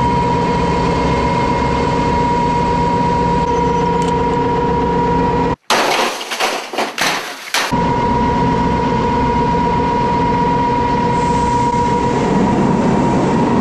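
Machinery running steadily with a constant high whine. About five and a half seconds in it breaks off for two seconds of sharp clattering and crashing.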